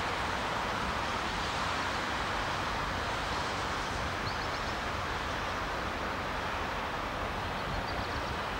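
Steady wind buffeting the microphone with a constant low rumble, over an even outdoor hiss. Faint high chirps come briefly about four seconds in and again near the end.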